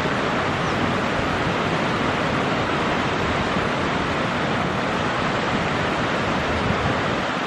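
Steady rushing of the Kamo River's flowing water.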